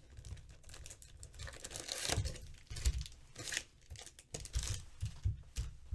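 Plastic wrapping crinkling and tearing in irregular crackles and small clicks as a sealed box of Prizm football cards is opened.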